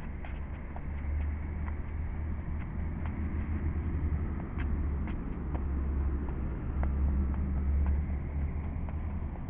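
Steady low outdoor rumble, loudest at the bottom end and swelling and easing, with light irregular taps and scuffs of sneakers on the platform surface during dance footwork.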